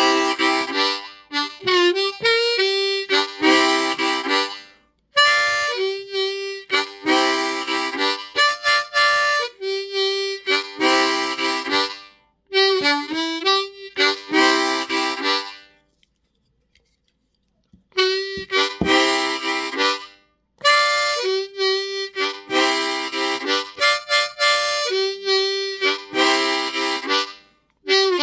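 Seydel diatonic harmonica in C playing chugging blues riffs, in phrases of chords and notes separated by short breaks, with a pause of about two seconds a little past halfway.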